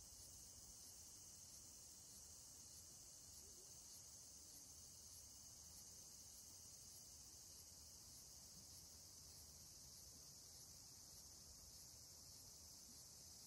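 Faint, steady high-pitched chorus of insects, with a soft pulse repeating about one and a half times a second.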